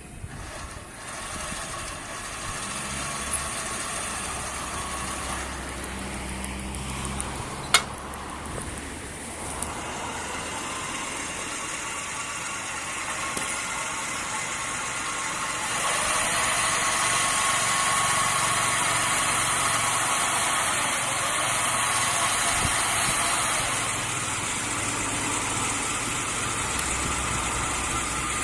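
Portable water well drilling rig running, its 2 kW electric drilling motor turning steadily with a steady whine; the sound grows louder about halfway through and eases back near the end. A single sharp click sounds about eight seconds in.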